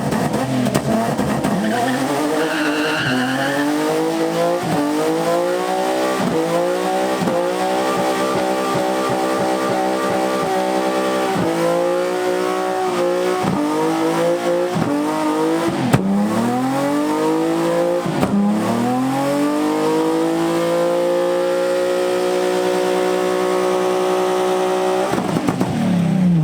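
A car engine doing a burnout: revved hard and dropped again and again, then climbing and held at high revs for about five seconds before falling off near the end, with tyres squealing.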